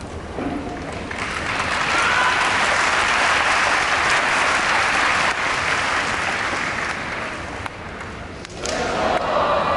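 Large arena crowd applauding a sumo wrestler's ring-entering ritual. The applause swells about a second in, holds for several seconds and then eases. Near the end, as the wrestler lifts his leg for the stomp, many voices in the crowd call out together.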